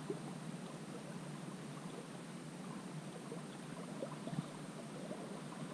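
Shallow river water flowing and gurgling steadily, with a few faint small ticks scattered through it.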